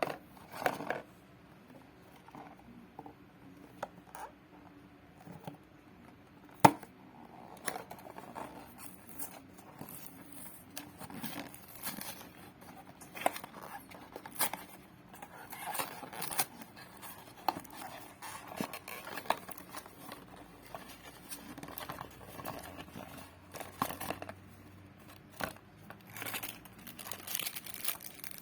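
Toy packaging being handled and opened by hand: scattered taps and clicks with crinkling and tearing, and one sharp click about six and a half seconds in.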